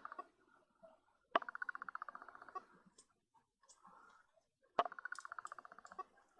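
Small parts of a zoom lens being handled: twice, a sharp click followed by about a second of fast, even rattling ticks.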